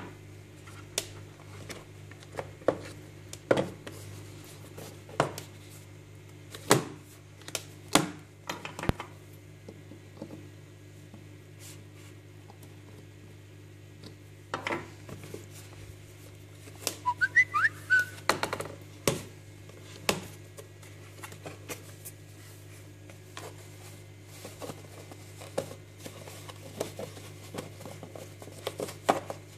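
Scattered clicks, taps and knocks of a metal key being worked in the box's metal gear-shaped lock and of the lid being handled and opened. A brief wavering high chirp, like a short whistle, comes about halfway through.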